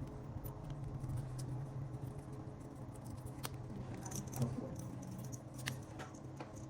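Faint scattered clicks and small handling noises of wire terminals being joined onto a replacement fan motor's leads, over a steady low hum.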